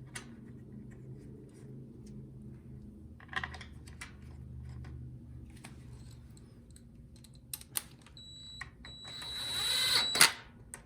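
Light clicks and taps of small engine parts being handled as the carburetor, gas hose and breather are refitted, over a steady low hum. Near the end a high steady whine comes in with a whir that rises to a sharp knock.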